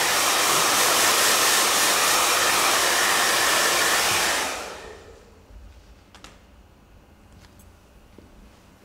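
Handheld hair dryer blowing a steady rush of air over a bare scalp to dry off sprayed alcohol. It cuts off about four seconds in and winds down over a moment, leaving only a few faint ticks.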